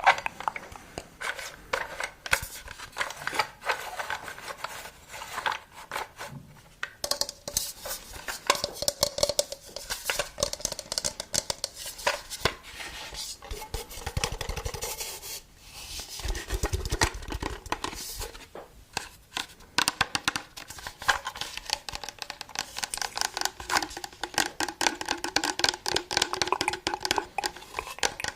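ASMR trigger sounds: a dense, uneven run of small taps, clicks and scratches on hard objects, with a faint ringing under parts of it.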